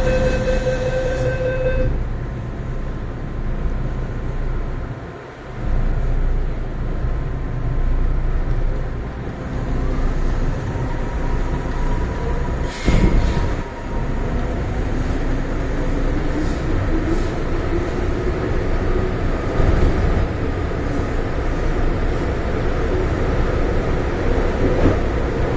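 Hong Kong MTR M-Train metro car running, heard from inside the carriage: a steady rumble of wheels and running gear, with a held tone that stops about two seconds in and a few sharp clicks about 13 seconds in. Through the second half a traction-motor whine rises steadily in pitch as the train gathers speed.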